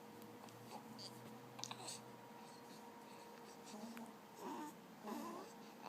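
Quiet room with a faint steady hum and a few small handling clicks. In the second half come two or three short, soft grunts from a newborn baby.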